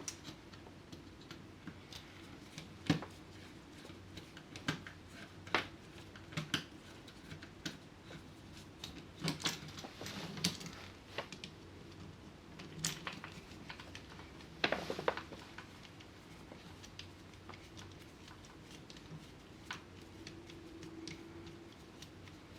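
Irregular small metallic clicks and scrapes of a flathead screwdriver bit working loose the terminal screws on an old electrical outlet, with a few louder taps about halfway through.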